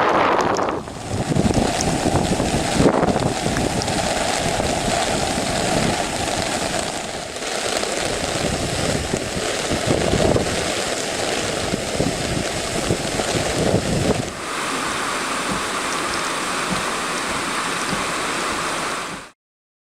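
Steady rushing of storm water with wind buffeting the microphone. It shifts abruptly in tone three times and cuts off suddenly near the end.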